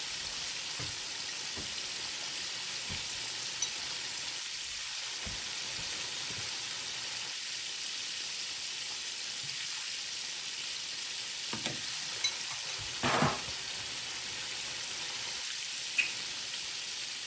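Battered chicken wings deep-frying in a saucepan of hot oil: a steady sizzle, with a few brief clicks and knocks, the loudest about two-thirds of the way in.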